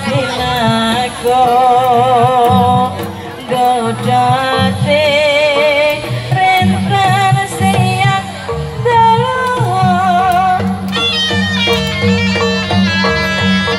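Live Javanese jaranan ensemble playing: a singer's wavering, ornamented melody over a steady pattern of barrel drums. About eleven seconds in, a shrill reedy shawm (slompret) joins with a stepping melody.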